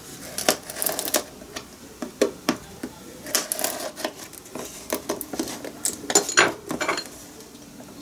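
Screwdriver tip scraping, poking and clicking at a cardboard hard-drive box to slit it open: a run of irregular sharp clicks and scratches, with a couple of longer scraping strokes midway.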